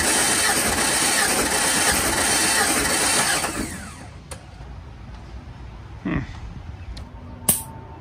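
Starter cranking the Jeep Comanche's six-cylinder engine with its spark plugs removed for a compression test on cylinder 3: a steady, dense churn that stops about three and a half seconds in. A few faint clicks follow near the end.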